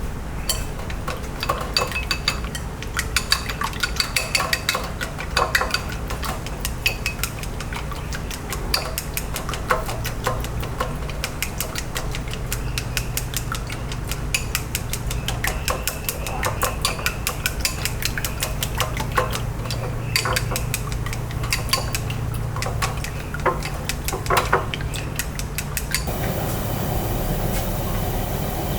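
Metal spatula clanking and scraping against a wok in quick, irregular strikes while rice is stir-fried, over a steady low hum. About three seconds before the end it cuts off abruptly to a steady background noise.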